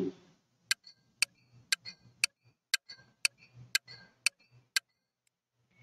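Countdown timer's ticking-clock sound effect: crisp, even ticks about two a second, nine in all, stopping near the end.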